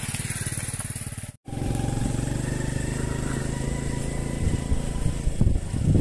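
Small motorcycle engine idling with an even, fast putter, then after a brief break about a second and a half in, the motorcycle running under way, louder, with a few knocks near the end.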